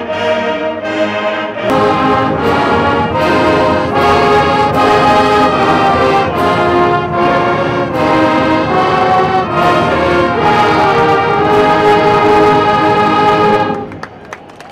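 Brass band music playing loudly over a steady beat of about two a second, cutting off abruptly near the end.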